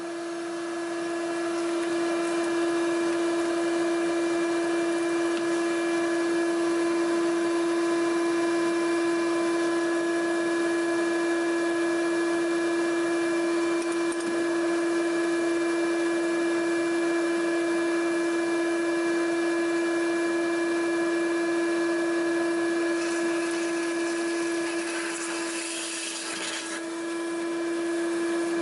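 Shop vac motor running steadily with a constant whine, pulling a vacuum on the engine's crankcase so the oil is held in the pan while the drain plug is out. A hissier rush joins it for a few seconds near the end.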